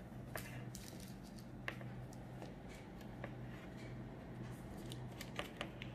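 A spatula spreading thick cake batter in an aluminium baking tin: soft scraping with scattered light clicks as it knocks the tin's metal sides, a few in quick succession near the end, over a steady low hum.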